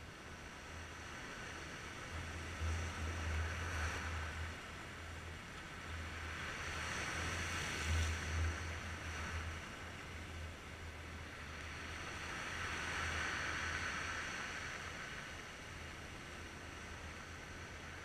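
Sea waves breaking and washing over shoreline rocks, swelling in three slow surges, with a low rumble of wind on the microphone.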